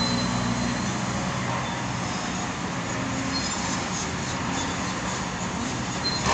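Steady drone of an excavator engine running, strongest in the first second, over a constant rumble of machinery and traffic noise.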